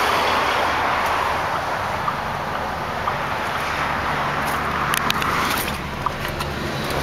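Pickup truck engine idling steadily, under a constant hiss of highway traffic. A few light clicks come about five seconds in.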